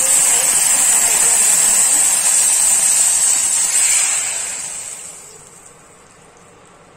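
Hot oil with cumin and asafoetida sizzling loudly as warm water is poured into the pan, a sudden hiss of flashing steam. It holds for about four seconds, then dies away over the next second or two.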